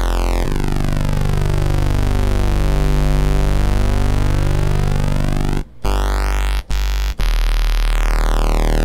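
Kurzweil PC3 synthesizer holding a low note on a pulse-width-modulated oscillator layered with a sine wave an octave below. The pulse width sweeps slowly, so the tone keeps shifting in a hollow, phasing way. The note cuts out briefly three times about six to seven seconds in.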